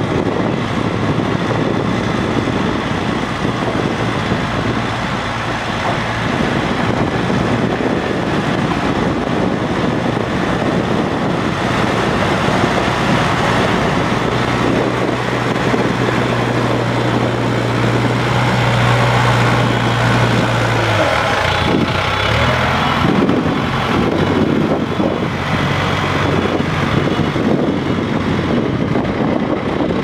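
JCB backhoe loader's diesel engine running under load as the front bucket pushes and scoops soil. The engine note holds steady, is strongest a little past the middle, then drops and wavers.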